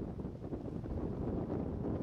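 Wind buffeting the microphone, an uneven low rumble with no distinct events.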